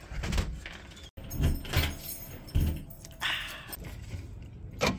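Door handling and keys: a door latch and handle clicking as a door is opened, keys jangling, and a few knocks and thumps. A sharp clack near the end.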